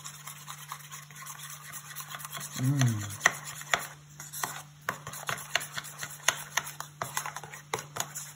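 A utensil scraping and clicking against the side of a bowl in quick, irregular strokes as egg yolks and grated Parmesan are stirred together into a carbonara sauce, over a steady low hum.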